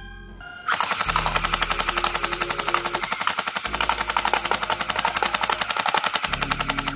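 Electric gel blaster (splatter ball gun) firing on full auto, a rapid, even stream of shots that starts about a second in and runs for some six seconds.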